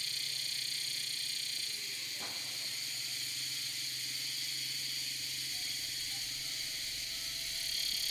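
A steady high-pitched hiss that holds even, with a faint brief click about two seconds in.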